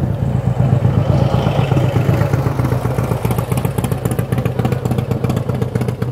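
A motor vehicle's engine running steadily, with a fast rattling texture added from about halfway through.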